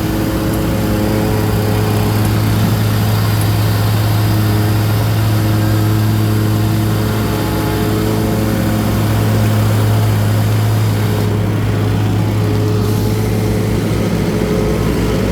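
Engine of paving equipment running steadily at a constant speed, a strong deep hum with a few fainter steady tones above it.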